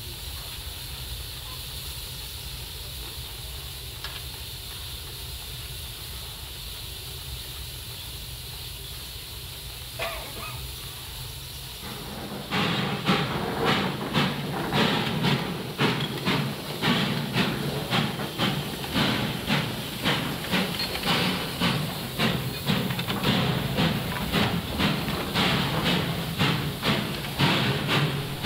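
Small narrow-gauge sugar-mill steam locomotive hissing steadily as it stands. About twelve seconds in, after a cut, it switches to a louder, even chuffing from its exhaust, about one and a half beats a second, as it works slowly.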